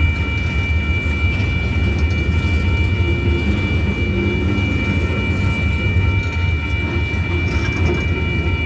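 Freight train of coil cars rolling past: a steady low rumble with a steady high-pitched tone held over it.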